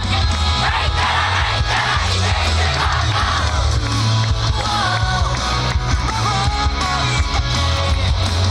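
Loud rock-style yosakoi dance music with a heavy bass line and a wavering melody, with shouts over it.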